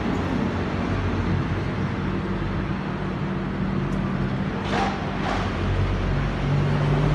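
Diesel passenger train pulling out and moving away, with a steady low rumble. Two short hisses come about five seconds in.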